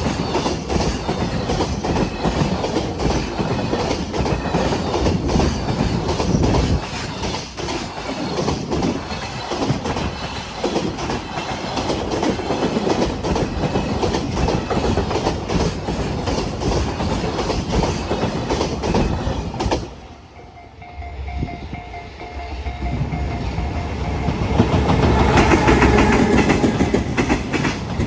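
Freight train wagons rolling past, their wheels clicking over the rail joints in a fast, steady clatter. About twenty seconds in the sound briefly drops away, then builds again and is loudest near the end.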